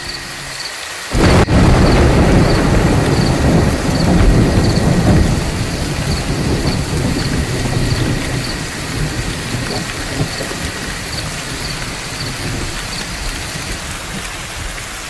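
A sudden crack of thunder about a second in, rumbling on loudly for several seconds and then fading into steady rain.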